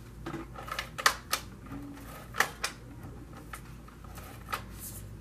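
Scattered sharp clicks and light taps, some in quick pairs, from craft supplies being handled: fun foam and tools for mounting a paper die-cut.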